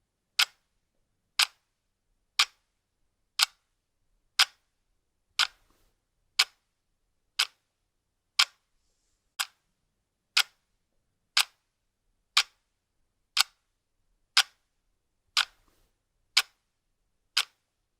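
Clock ticking: single sharp ticks, one each second, evenly spaced, with silence between them.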